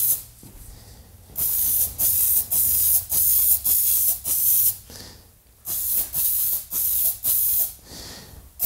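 Aerosol can of Rust-Oleum Universal hammered spray paint hissing in a quick series of short spurts, each about half a second. Three brief stops break the spurts: near the start, about halfway and near the end.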